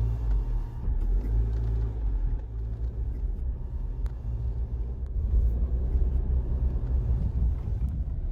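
Car driving along a road: a steady low rumble of road and engine noise, with a few faint clicks and knocks.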